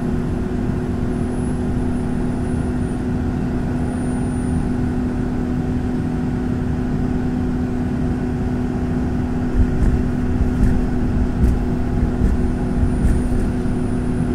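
Car driving at highway speed, heard from inside the cabin: steady engine drone and tyre and road noise. A few low thumps and knocks come from about ten to thirteen seconds in.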